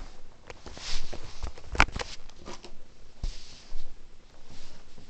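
Rubbing and rustling with scattered clicks, the loudest a sharp click about two seconds in, typical of a handheld camera being handled.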